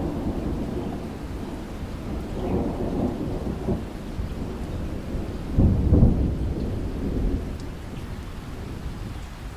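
Steady rain with rolling thunder: deep rumbles swell and fade, the loudest about six seconds in, then die away toward the end.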